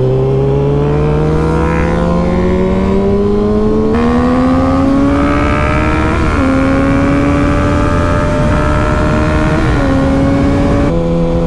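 Kawasaki ZX-6R inline-four sport-bike engine under acceleration, its pitch climbing steadily, then holding high at highway speed with a few short dips as it shifts up.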